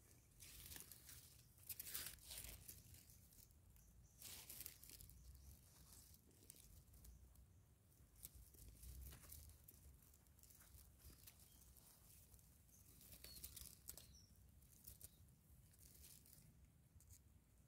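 Faint scratchy rustling and scraping of dry soil, crumbs and dead grass stalks as a gloved hand digs out and pulls up small wild yam tubers, in short bursts with pauses between.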